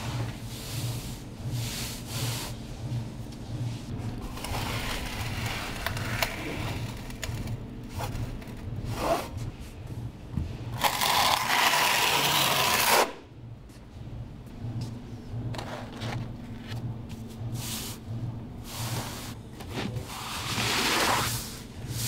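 Notched steel trowel scraping and combing through thin-set mortar, loudest for about two seconds and cutting off suddenly. Around it, rustling and rubbing as a Schlüter-KERDI waterproofing membrane is handled and smoothed down by hand, over a steady low pulsing hum.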